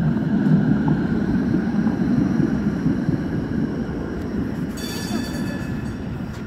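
A low-floor tram passing along its track, with a steady low rumble of wheels on rails that is loudest at first and eases as the tram moves off. A brief high-pitched tone sounds about five seconds in.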